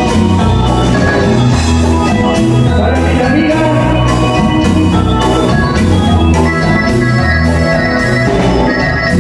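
Live band playing a loud instrumental passage: electric bass carrying a moving bass line, electric guitar, congas and drum kit keeping a steady beat, with an organ-like keyboard sound.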